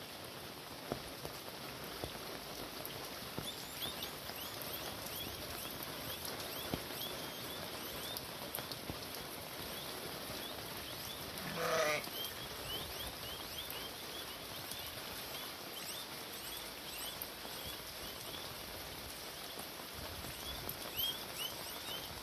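Steady rain falling, with a single loud bleat from livestock about halfway through.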